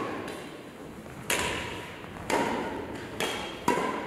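Badminton rackets striking a shuttlecock in a rally: four sharp hits, the last two close together, each with a short ring after it.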